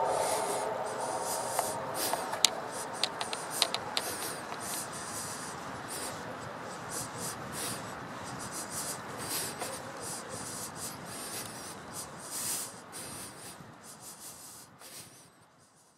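The tail of a distant train whistle dies away in the first second, then footsteps on an asphalt path, a crisp scrape about twice a second over a steady hiss, fading out gradually.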